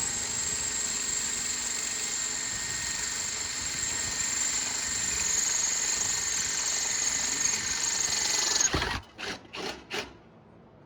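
Power tool running with a steady high-pitched whine, then stopping abruptly about nine seconds in, followed by a few short bursts.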